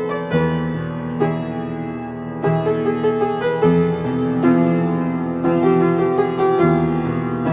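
Solo piano playing a slow, unaccompanied sketch: chords struck about once a second, each left to ring into the next.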